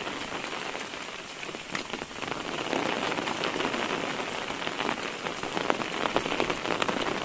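Heavy rain falling steadily, a dense patter of many small drop hits on wet ground.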